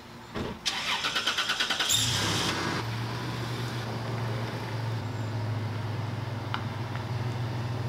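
Pickup truck being started: a thump, then the starter cranking in quick pulses until the engine catches about two seconds in. The engine then settles into a steady low running hum as the truck pulls away and reverses.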